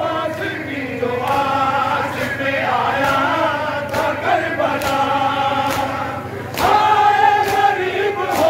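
A group of men chanting a Muharram noha (mourning lament) together, over a steady beat of sharp slaps about twice a second: the chest-beating (matam) that keeps time with the lament.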